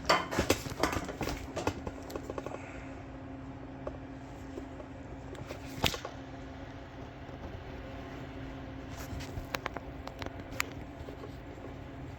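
Handling noise: rustling and clicking as the camera or borescope is moved into place, busiest in the first two seconds. A single sharp click comes about six seconds in, and a few lighter clicks follow near the end, all over a steady low hum.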